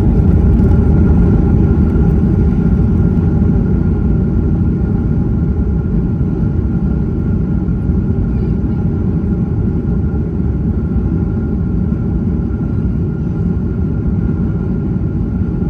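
Cabin noise inside a Boeing 737 MAX 8 during landing: a loud, steady low rumble with faint steady tones above it, slowly easing in loudness.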